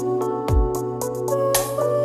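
Instrumental background music: sustained melodic notes over a soft beat, with a kick-drum thump about half a second in.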